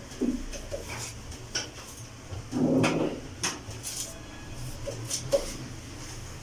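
A cleaning cloth rubbing over the front panel and control knobs of a gas cooker, with scattered light clicks and knocks of the knobs and metal. There is one louder scuffing rub about two and a half seconds in.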